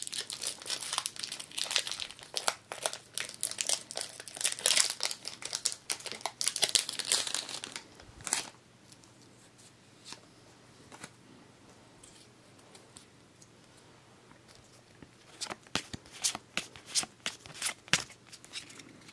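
Foil wrapper of a Pokémon booster pack crinkling and tearing as it is opened, in a dense crackle for about eight seconds. After a quiet stretch, lighter crinkling and handling of the pack's cards near the end.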